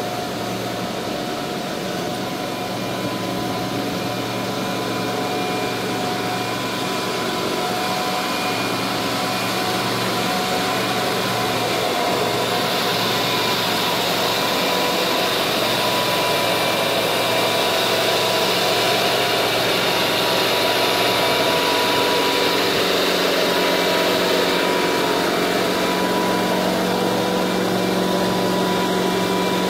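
Heavy-haul transport rig's diesel engine running steadily: a constant mechanical hum that grows a little louder, with a hiss joining it for about ten seconds midway.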